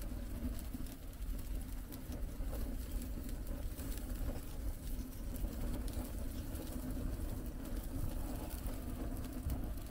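Steady low rumble of a moving vehicle, with a constant hum over it and no change in pace.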